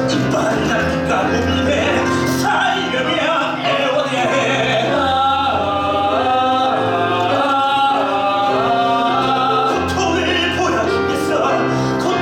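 Live musical-theatre song with a band or backing track: singing with vibrato over sustained low bass notes.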